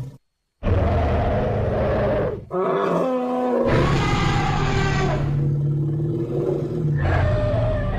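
Sound-effect roars and bellowing calls of an Archaeobelodon, an extinct elephant relative: several separate loud calls after a brief silent break half a second in, the last with a falling pitch.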